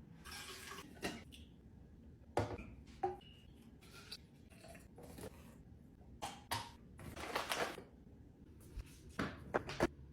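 Containers and packages handled and set down while restocking a fridge: a scattered series of light knocks and clicks, with a longer rustle a little past halfway and three quick knocks near the end.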